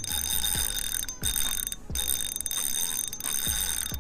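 Background music with a steady low beat, overlaid by a continuous high-pitched ringing like an alarm tone that breaks off briefly twice.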